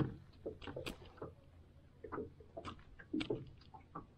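Scattered light taps and clicks of hands unhooking a tiny bluegill from the line, the loudest a sharp knock right at the start.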